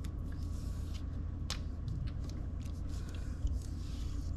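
Scattered soft rustles and small clicks of a sticker being handled and pressed onto a fridge, with one sharper click about a second and a half in, over a steady low room hum.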